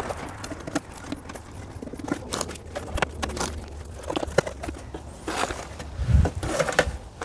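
Nylon zip-tie body panel pegs being pushed and pulled through holes in a plastic trim panel by hand: irregular small plastic clicks and scrapes, a little louder about six seconds in, over a faint low hum.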